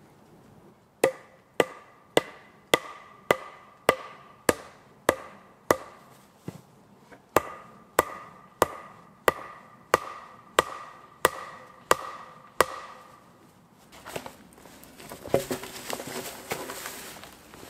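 A wooden post or stake struck with a hand tool, about nineteen blows at a steady pace of roughly one every 0.6 seconds, each a sharp knock with a short ringing tone from the wood. Near the end the blows stop and a log is moved: scraping, rustling and a thump.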